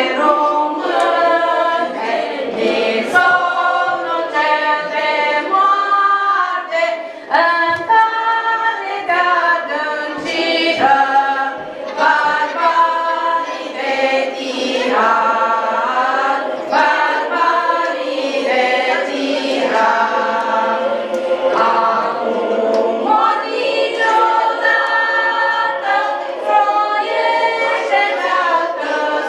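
A group of young children singing a song together as a choir.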